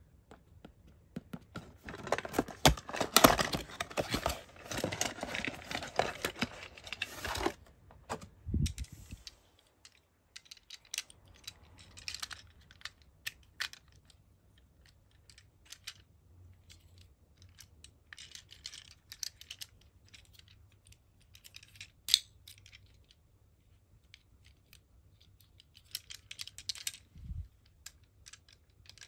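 A cardboard toy box and its plastic packaging are opened and handled, with dense rustling, crinkling and tearing for about the first nine seconds. Then come scattered clicks and snaps as the small plastic toy ambulance and robot figure are turned in the hands and their parts are fitted together.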